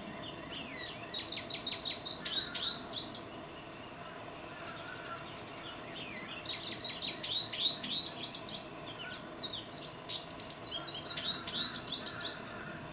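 Male American goldfinch singing: three long bursts of its rapid, jumbled twittering song, one near the start, one from about six seconds in, and one more shortly after, each a quick run of short sweeping high notes.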